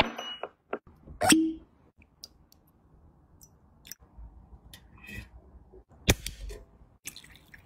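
Glass clinking in a whisky tumbler holding a large ice ball, with a louder knock a little over a second in and a few light clicks. About six seconds in comes the sharp crack of an energy-drink can's ring-pull being opened, followed by a short hiss.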